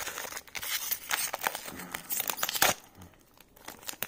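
Foil wrapper of a trading-card pack crinkling and tearing as it is ripped open, with one sharp loud rip about two and a half seconds in, then a few fainter crinkles.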